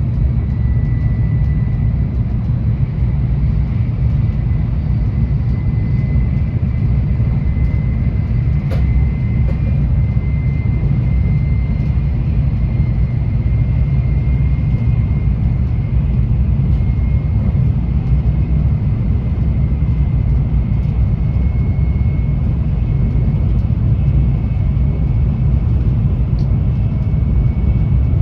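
Tokaido Shinkansen N700A running at speed, heard from inside the passenger cabin: a steady low rumble of the train on the rails, with a thin, steady high whine over it and a single light click about nine seconds in.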